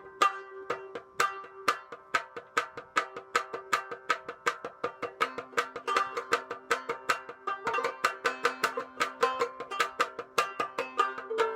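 Calfskin-covered shamisen being played: a quick run of sharply struck notes, several a second, with the sharp attack of the strike on the skin, over an open string left ringing.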